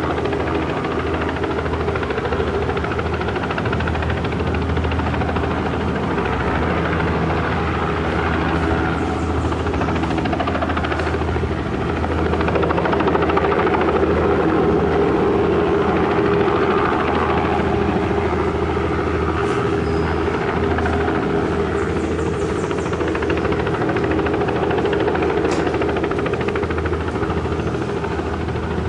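Helicopter running steadily, its rotor and engine giving a continuous low drone that grows a little louder about twelve seconds in.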